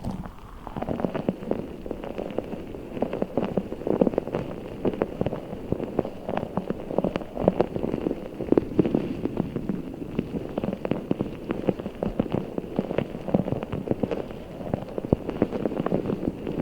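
A giant squishy ball filled with orbeez water-gel beads being squeezed and kneaded by hand. The beads inside squelch and crackle in a dense, unbroken patter of small clicks.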